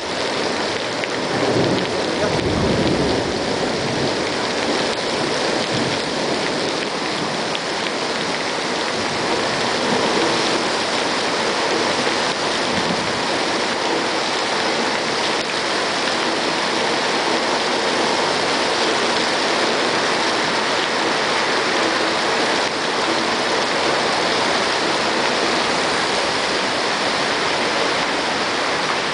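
Heavy thunderstorm downpour, rain hammering steadily on the road and parked cars, with water pouring off roof spouts. A low rumble of thunder swells about two seconds in.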